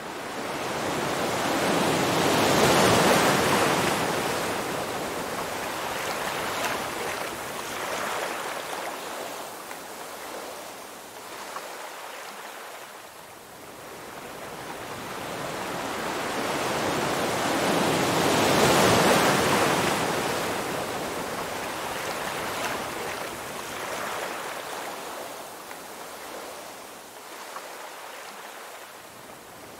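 Ocean surf breaking on a sandy beach. Two waves crash, one about three seconds in and one near nineteen seconds, each swelling and then fading into a long wash.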